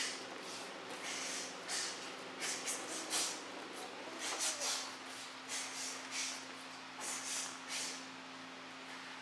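Karate kata being performed: a run of short, irregular swishes, one with each strike and block, fading out about eight seconds in. A faint steady hum lies underneath.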